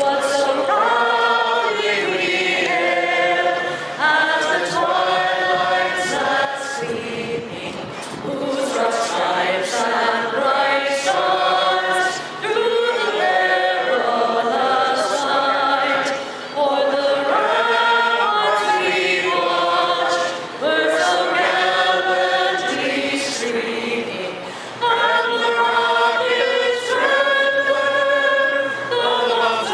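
A national anthem sung by a woman leading the gathering, in slow phrases with long held notes and short breaks for breath.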